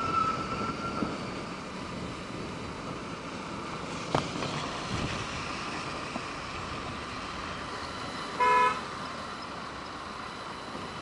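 Steady road traffic noise, with a vehicle horn honking once for about half a second about eight and a half seconds in.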